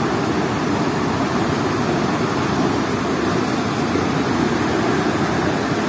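Steady rush of turbulent water pouring through a river sluice gate, an unbroken low noise that doesn't change.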